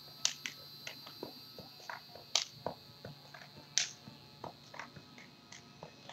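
Faint, scattered clicks and ticks at uneven intervals over a low, steady hum.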